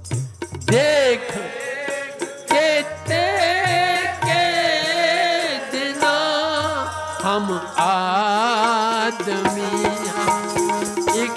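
Sikh kirtan: a singer draws out a melodic line with wavering vibrato over sustained harmonium chords, with steady hand-drum strokes keeping the rhythm.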